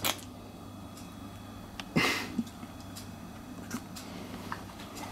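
Raw carrot slice being bitten and chewed, with one sharp crunch about two seconds in and a few small clicks, over a low steady hum.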